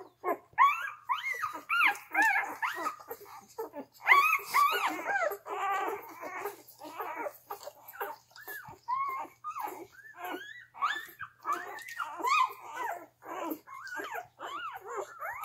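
Three-day-old Gerberian Shepsky puppies squeaking and whimpering while they nurse, a near-continuous run of short high-pitched squeals from several pups at once. The squeals come louder and closer together about four seconds in.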